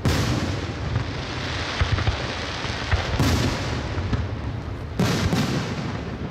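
Aerial firework shells bursting in a display, with booms and a rumbling echo. There is a loud burst right at the start, another about three seconds in, and two close together about five seconds in.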